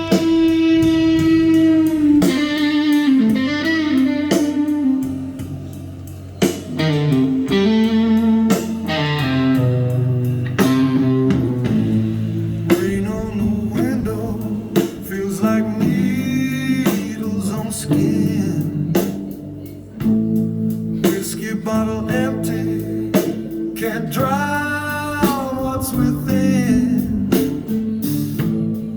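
Blues-style music led by guitar, a song's opening before the sung verse.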